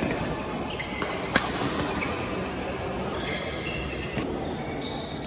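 Badminton rally: sharp racket strikes on the shuttlecock, the loudest about a second and a half in, with court shoes squeaking briefly on the court floor, over the steady din of other courts in play in a large hall.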